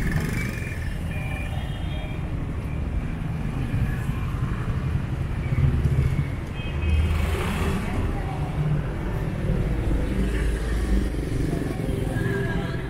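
Street traffic: a steady low rumble of vehicle engines, which swells louder as a vehicle passes about seven seconds in.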